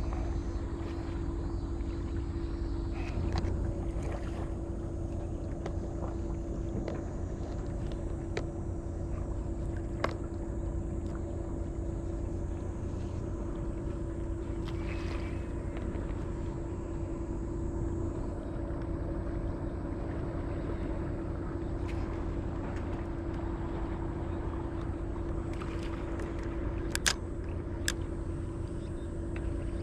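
Steady low engine-like drone with a constant hum held through, broken by a few sharp clicks about ten seconds in and twice near the end.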